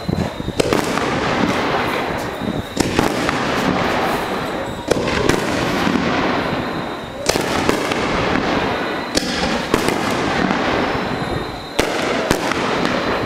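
Aerial firework shells bursting overhead: a series of sharp bangs, one every two seconds or so, over a continuous noisy background.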